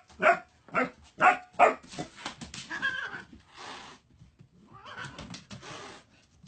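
A dog barking: four short, loud barks in the first two seconds, followed by quieter scuffling noise.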